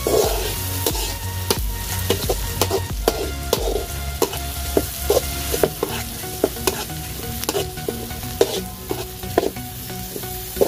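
Onions and tomatoes sizzling in hot oil in a pan while being stirred. A utensil scrapes and knocks against the pan many times.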